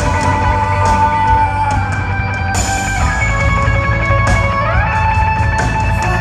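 Live rock band playing an instrumental passage between sung lines, with guitar to the fore over drums and cymbals, at a steady loud level.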